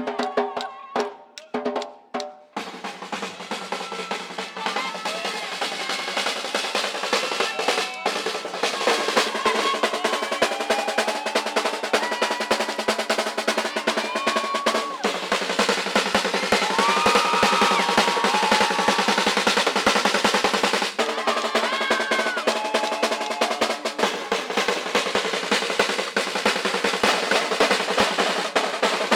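Batucada samba percussion ensemble playing a fast, dense rhythm led by snare drums over bass drums. It is choppy with short stops at first, then runs on without a break.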